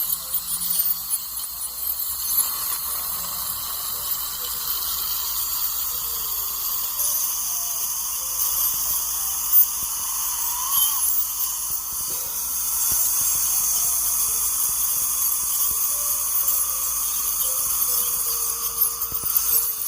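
Ultrasonic dental scaler working on the teeth during gum-cleaning scaling, a steady high whine over the hiss of its water spray and the suction. The whine strengthens about seven seconds in and grows slightly louder again about twelve seconds in.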